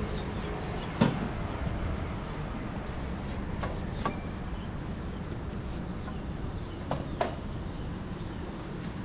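A few light knocks of a wooden frame being handled on a fish-drying rack, the sharpest about a second in and two more close together near the end. Under them is a steady outdoor rumble.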